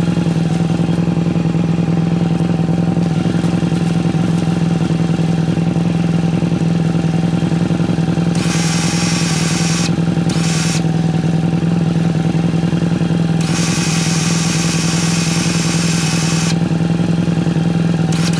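Electric winch on a Can-Am Outlander 850 XMR running steadily, spooling new synthetic rope onto its drum. It gives a constant hum with a higher whine over it. A hissing noise joins in briefly at about nine seconds and again from about thirteen to sixteen seconds.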